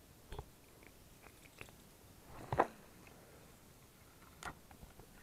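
A few sparse, short clicks and knocks over a quiet background, the loudest about two and a half seconds in.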